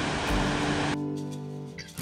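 Background music with long held notes comes in over the steady rush of surf. The surf noise cuts off abruptly about halfway through, leaving the music alone, fading.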